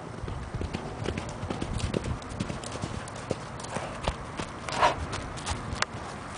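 Quarter Horse stallion's hooves drumming on the dry pasture ground as it gallops up close, an irregular run of hoofbeats. About five seconds in there is one short, louder rushing sound.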